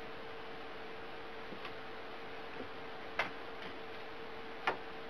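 A few light taps of a fingertip on a tablet's touchscreen, the two loudest about three seconds and four and a half seconds in, over a steady faint hum.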